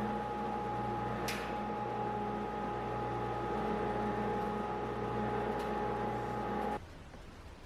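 A 2-horsepower dust collector running: a steady whirring with a constant whine and low hum, with a couple of brief clicks. The noise cuts off abruptly near the end, leaving a much quieter background.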